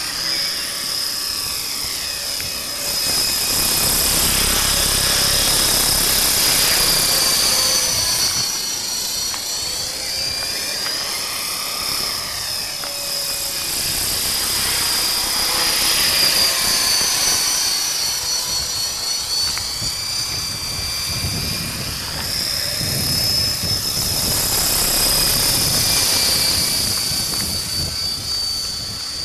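Align T-REX 450 V2 electric RC helicopter in flight, with a five-blade main rotor and four-blade tail rotor: a steady high-pitched whine over rotor buzz, wavering slightly in pitch and swelling louder three times as it passes closer.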